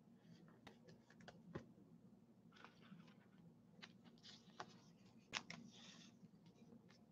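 Near silence: faint room tone with scattered soft clicks and a few brief rustles, the sharpest click about five seconds in.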